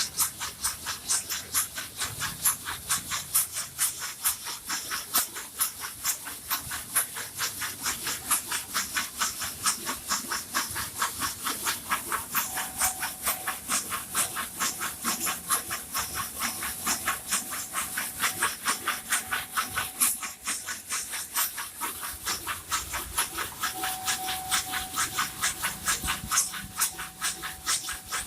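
Bamboo satay skewers tumbling in a skewer-smoothing machine, a continuous dry clatter of wood on wood with many sharp clicks a second.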